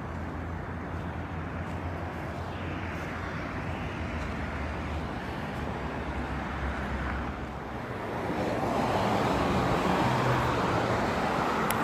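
Road traffic noise from passing cars, a steady rushing hum that grows louder about eight seconds in as a vehicle goes by.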